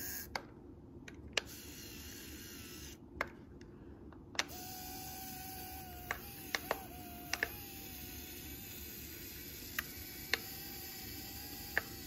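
Tiny electric gear motors of a 1/50 scale radio-controlled bulldozer model running as it drives, a faint steady high whine that starts about a third of the way in, with scattered sharp clicks throughout.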